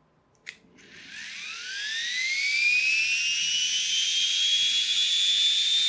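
A click of the power switch, then the small electric motor of an Air Hogs Moto Frenzy RC motorbike spinning up its flywheel: a high whine that rises in pitch for a few seconds and settles into a steady high tone. The battery is freshly charged and the motor runs up to speed strongly.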